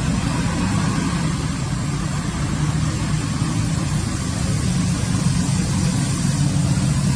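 A motor engine running steadily with a low hum, over a constant background hiss.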